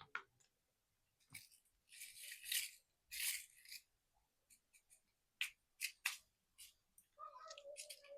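Plastic chocolate wrappers crinkling and tearing as they are opened: several short rustling bursts, then a few sharp clicks.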